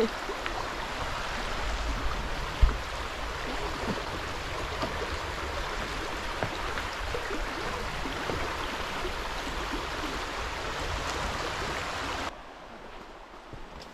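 Shallow, rocky mountain creek rushing over riffles, a steady wash of water, with one short thump about three seconds in. Near the end the rushing cuts off abruptly to a much quieter background.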